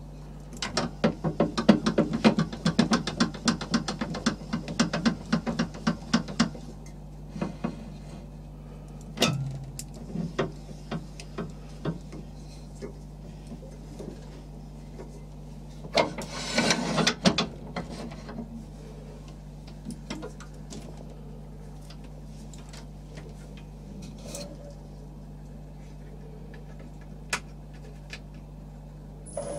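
Metal clicking and knocking from setting up a stopped wood lathe by hand. A rapid run of clicks lasts about six seconds, followed by a few single knocks and a brief scraping burst about halfway through.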